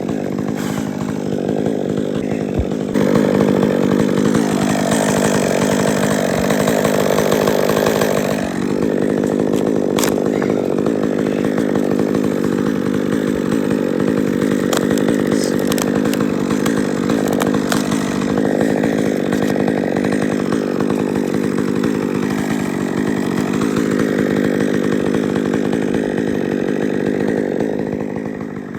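Two-stroke chainsaw running hard into the wood of a dead tree. Its engine note drops for a few seconds under load and then rises again.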